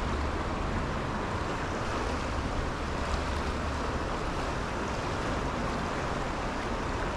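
Steady rushing of a fast-flowing trout stream, an even wash of water noise with a low rumble underneath.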